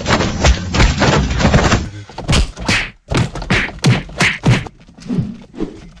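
Muffled rhythmic thumping for about the first two seconds, then a run of separate clunks from a Toyota MR2 SW20's manual gear lever being worked through the gates, fading toward the end.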